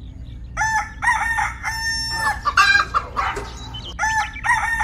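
Rooster crowing: one cock-a-doodle-doo ending in a long held note, a short stretch of rougher calling, then the same crow starting again about four seconds in.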